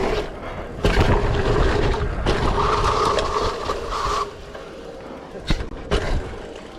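Mountain bike riding down a dirt jump trail: tyres rolling on dirt with wind rushing over the microphone, growing quieter after about four seconds, with a couple of sharp knocks near the end.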